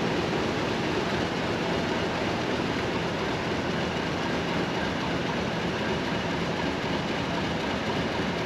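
Class 50 diesel locomotive's English Electric 16-cylinder engine idling while the train stands, a steady, even rumble.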